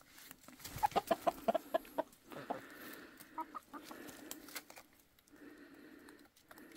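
Hens clucking while they forage, with a quick run of short clucks about a second in and softer, lower clucking after it.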